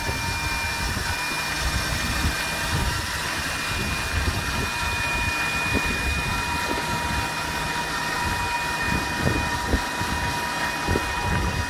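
Rolls-Royce Merlin 25 V12 with its cam covers off, being turned over on the test stand. It makes a steady machine whine over a low rumble, with scattered clicks from the exposed valve gear.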